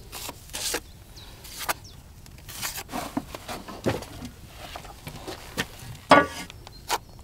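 Small steel trowel working mortar: scattered scrapes, knocks and dabs as lumps of corner-bead mortar are scooped from a bucket and pressed onto the wall.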